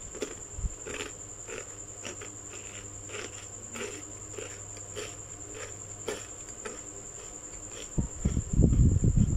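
Close chewing of crunchy chocolate-coated balls, a crunch every half second or so. A steady high-pitched whine runs underneath, and louder low thuds come near the end.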